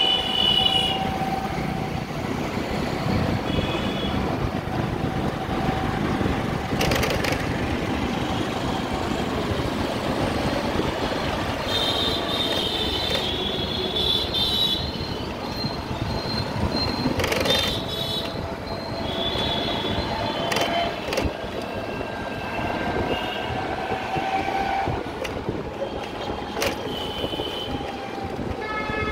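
Road noise from riding along a busy city street: a steady rumble with a continuous whine, several short high-pitched horn beeps from the surrounding rickshaws and scooters, and a few sharp knocks from bumps in the road.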